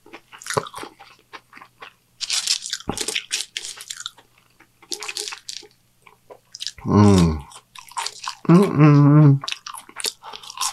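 Close-miked chewing and crunching of a mouthful of food, with wet, crackly bites and mouth noises. Partway through come two loud hummed "mmm"s of enjoyment, the second one wavering in pitch.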